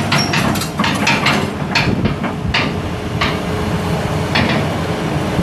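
John Deere 200D LC excavator's six-cylinder turbo diesel running while the upper structure swings, with a run of sharp metal clanks and knocks in the first two seconds and single ones about three and four and a half seconds in.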